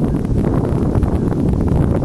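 Wind buffeting the microphone outdoors: a loud, steady, low rumble of noise.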